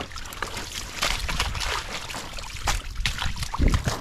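Water sloshing and splashing in irregular bursts, with a low thump about three and a half seconds in.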